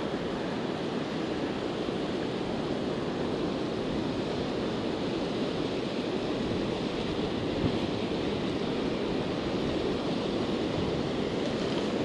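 Steady rush of water pouring over a river spillway and churning below it.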